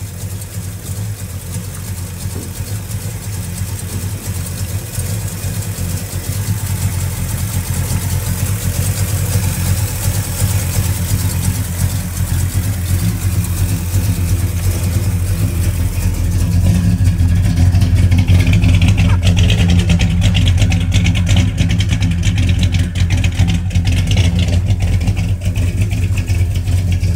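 A Ford big-block V8 runs at a steady idle while its cooling system is being flushed with water, with a hiss over it in the first half. The engine sound grows louder about two-thirds of the way in.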